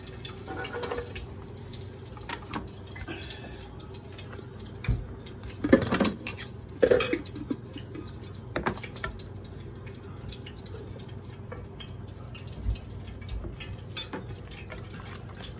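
Kitchenware being handled: a glass blender jar and its lid knocked and set down, and a ladle stirring soaked dried chiles so the liquid drips and sloshes. The loudest clunks come about six and seven seconds in, over a steady low hum.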